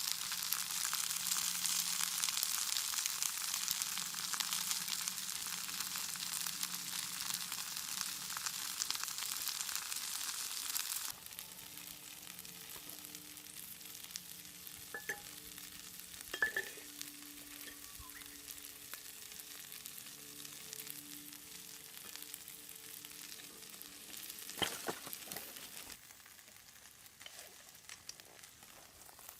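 Yakisoba noodles sizzling hard in a hot cast-iron skillet, a dense crackling hiss. About a third of the way in the sizzle drops off abruptly to a much quieter hiss, with a few sharp clicks later on.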